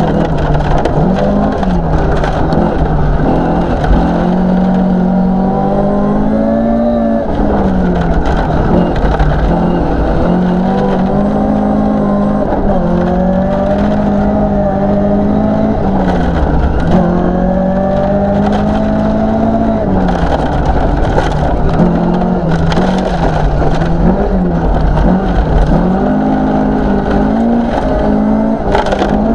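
Interior sound of a 1972 Toyota Celica 2.0GT's 16-valve four-cylinder engine at full rally pace. The revs climb hard and drop back repeatedly with gear changes and lifts. Under it is a constant rushing crunch of tyres on gravel.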